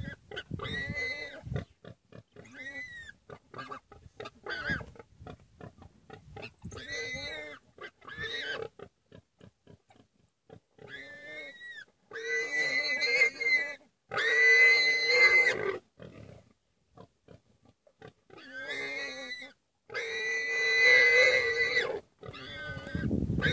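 Warthog squealing in distress while being attacked by African wild dogs: short squeals through the first half, then long, loud screams from about twelve seconds in, with quiet gaps between.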